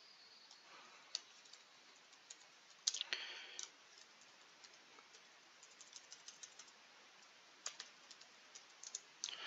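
Faint, sparse keystrokes on a computer keyboard as text is typed, with a louder short flurry about three seconds in.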